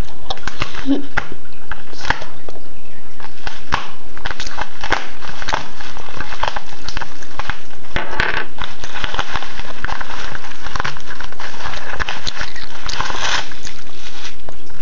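A duct-taped padded paper mailer being torn and peeled open by hand: a dense run of crackling and crinkling from the tape, paper and packing, with bubble wrap handled near the end.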